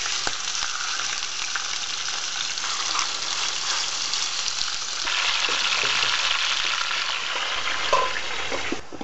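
Raw rabbit pieces sizzling in hot sunflower oil in a metal frying pan as they are laid in, the sizzle getting louder about halfway through as more meat goes in. Near the end a short clink as a metal lid is set on the pan.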